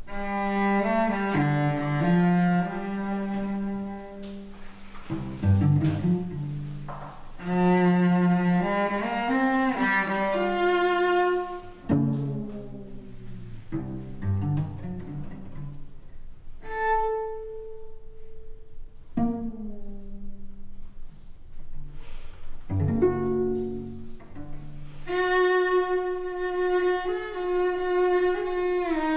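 Solo cello playing slow bowed notes and chords, with a stretch of separate notes left to ring and fade in the middle, then a long held note near the end.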